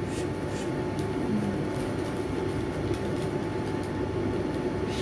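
Steady low background hum, with faint crinkles of joss paper being folded by hand.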